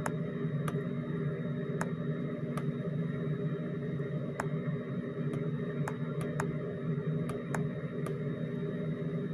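Sharp single clicks of a computer mouse, about a dozen at irregular intervals, over a steady room hum with a faint high whine.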